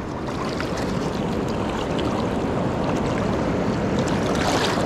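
Shallow river water rushing over gravel close to the microphone, with splashing as a steelhead held in the current kicks its tail, busier near the end.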